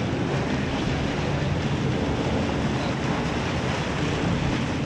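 Steady wind buffeting the microphone over choppy sea water washing and slapping, with no distinct events.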